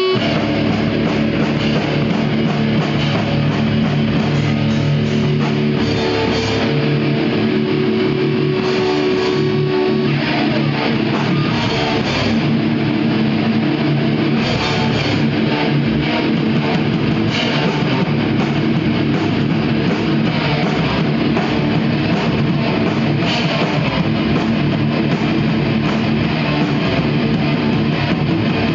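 Small rock band playing live: electric guitar over a drum kit, loud and continuous, with long held notes in the first ten seconds or so.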